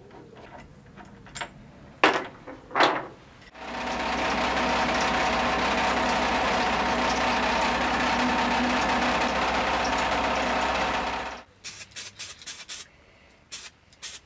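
Abrasive blast cabinet in use: a steady loud hiss of blasting with a hum underneath, starting about three and a half seconds in and cutting off suddenly about eleven seconds in. Before it come two sharp snaps, and after it a few light clinks.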